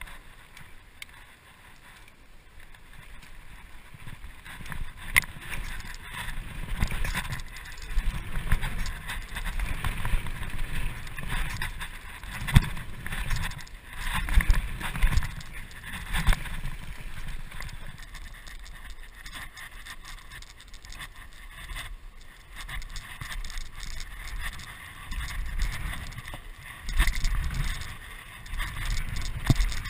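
Mountain bike riding fast down a dirt trail, heard from a camera on the rider's bike: an uneven rumble of tyres over dirt with frequent knocks and rattles as the bike hits bumps and landings.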